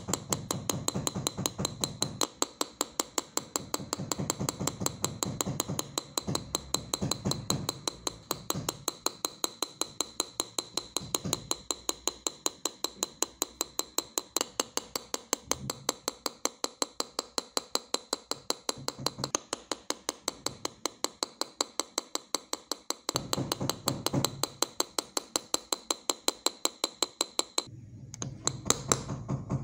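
Rapid, even metal-on-metal taps of a small hammer driving a steel engraving chisel into a sheet-metal pendant blank, about four taps a second with a light ringing. The taps stop shortly before the end.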